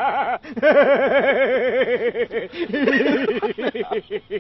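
A man laughing loudly in a long run of rapid, even 'ha-ha' pulses. There is a brief break for breath about half a second in, and the laugh breaks into shorter bursts near the end.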